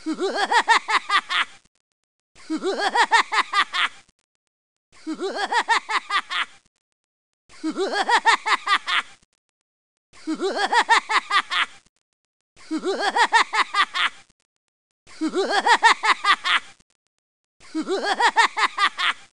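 A short burst of rapid 'ha-ha-ha' laughter, about a second and a half long, played over and over as a loop: eight identical repeats with silent gaps of about a second between them.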